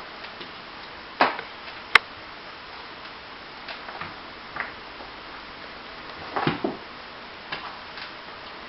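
A cat's claws scratching a scratcher in short, irregular strokes, with a sharp click about two seconds in.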